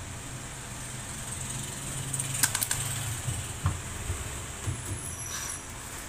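Sharp clicks and a few light knocks of hands fitting parts at a front-loading washing machine's door opening, around the door lock and rubber door gasket, over a low steady hum. The clicks bunch together about two and a half seconds in.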